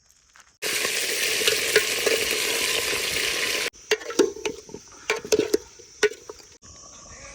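Chicken drumstick curry sizzling in hot oil in a pan, a loud steady hiss that cuts off abruptly. Then a utensil stirring and scraping the pan, with a string of sharp knocks.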